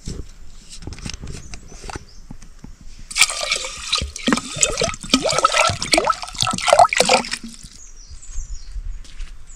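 Water splashing and sloshing in a cooking vessel: scattered knocks at first, then about four seconds of loud splashing with bubbling, gurgling streaks from about three seconds in.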